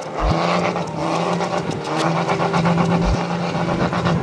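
Diesel pickup truck's engine held at high revs while its wheels spin in soft beach sand as the truck struggles to pull free.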